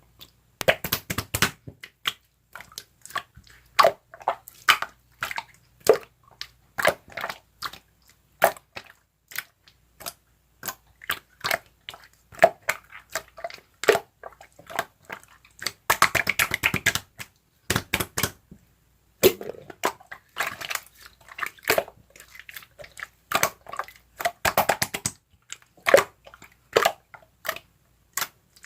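Slime being squeezed and poked by hand, giving irregular clicks and crackling pops, with a dense run of crackles about sixteen seconds in.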